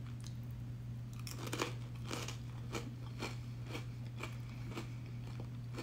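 Crunchy chewing of a fried crab rangoon, crisp wonton-skin crunches about twice a second over a steady low hum.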